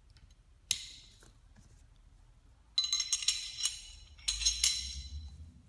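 Small steel parts of a Glock pistol being worked apart by hand: one sharp click about two-thirds of a second in, then two bursts of ringing metallic clinks and rattles in the second half.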